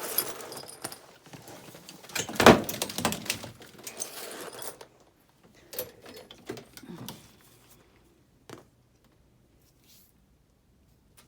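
Metal bike locks and lock cables being handled, jangling and clanking, with one loud knock about two and a half seconds in; after about five seconds only a few separate clicks and knocks.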